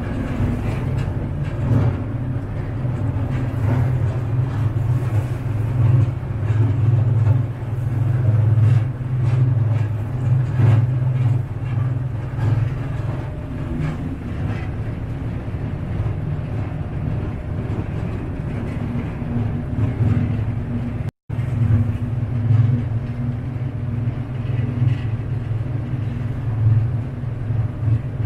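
A passenger boat's engine running with a steady low drone, over the rush and splash of water churned up in its wake. The sound drops out for an instant about three-quarters of the way through.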